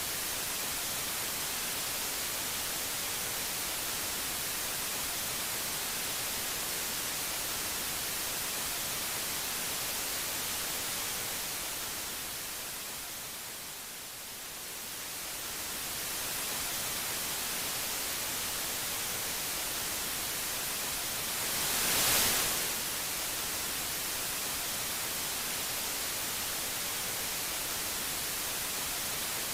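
Steady static hiss, like white noise. It fades down for a few seconds around the middle, comes back up, and swells briefly louder about two-thirds of the way through.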